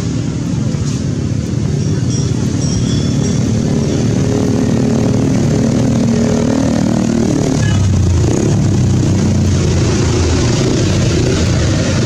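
A motor engine running steadily, its sound changing about eight seconds in.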